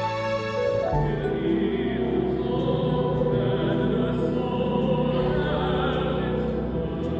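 A choir singing a slow Christmas piece, a held chord changing to new notes about a second in.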